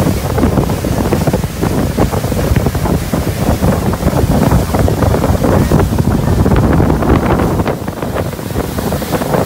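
Loud wind buffeting the microphone on a speeding open motorboat, mixed with the rush of spray and water along the hull.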